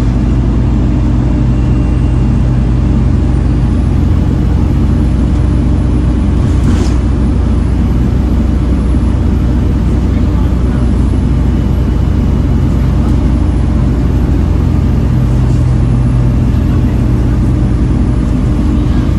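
Volvo B7TL bus's D7C six-cylinder diesel running steadily under way, heard on board. From about four seconds in, a thin high whine wavers up and down in pitch above the engine. A short burst of noise comes about seven seconds in.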